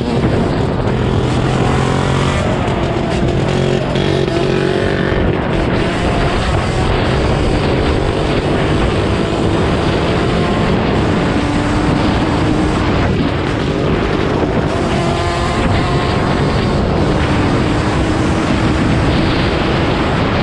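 Small motorcycle engines running on a dirt forest track, the nearest engine's note rising and falling with the throttle as the bikes ride along.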